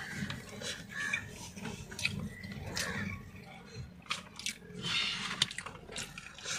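A man chewing a mouthful of biryani: irregular soft, wet mouth clicks and smacks.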